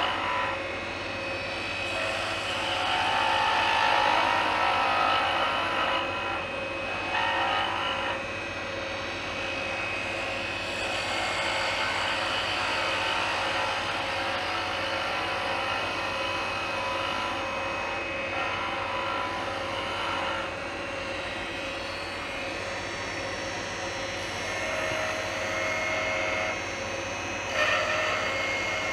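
Wood lathe running steadily while a 3/8-inch spindle gouge cuts a spinning maple spindle. The hiss of the cut swells and fades every few seconds over the steady hum of the lathe.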